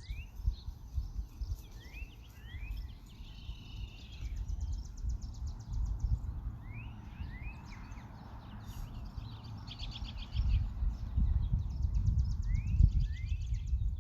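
Small songbirds calling: groups of short rising chirps and several bursts of fast trills, over an uneven low rumble.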